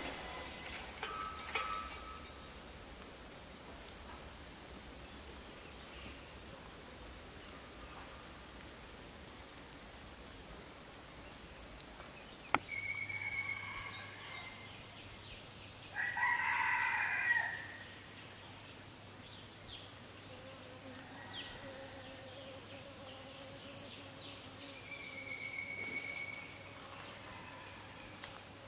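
Steady high-pitched insect drone, with a rooster crowing once about halfway through and a few short bird calls.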